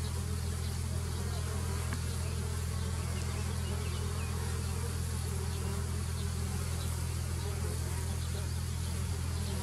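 Honeybee swarm buzzing: a steady, low hum of many wings that holds even throughout.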